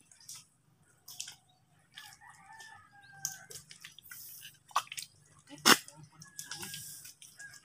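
A rooster crowing faintly, one long crow about two seconds in and a shorter one near the end. Scattered clicks and small wet sounds, the loudest a single sharp click nearly six seconds in.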